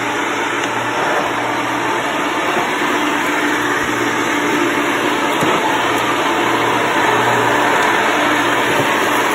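Hoover Elite 5.0 bagged upright vacuum cleaner running steadily, with a new brush roll and belt fitted. A low hum under the motor noise comes and goes every second or two.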